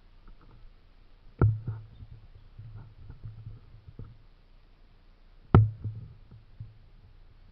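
Two sharp knocks with a dull thud, about four seconds apart, over faint rustling and ticking.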